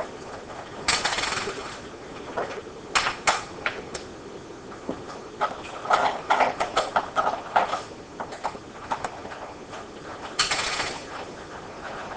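Small metal clicks and short scrapes as a hex key turns out small crankcase fasteners and the loosened bolts and parts are handled. They come in irregular clusters, busiest around the middle.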